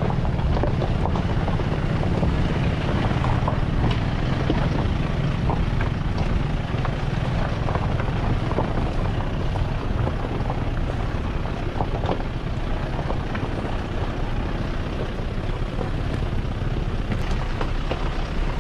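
A vehicle running steadily on the road, a continuous engine and road rumble with rushing noise over it.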